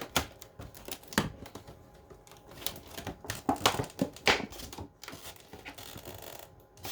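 Cardboard box and packaging being handled and worked open by hand: irregular clicks, scrapes and crinkling rustles.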